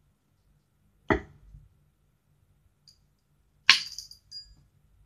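A sharp knock about a second in, then a louder metallic clink with a brief ringing about two and a half seconds later: a coin thrown into the wishing well.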